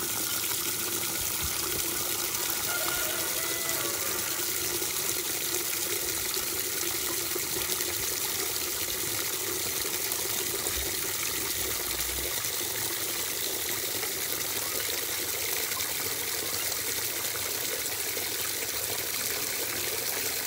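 Water from a garden hose nozzle pouring steadily into a plastic bucket of chicken feed, splashing into the soaking grain as the bucket fills.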